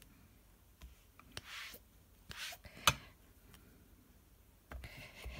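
A clear plastic stamping block rubbed and pressed over cardstock by hand: faint scraping rubs and a few light taps, with one sharper click about three seconds in.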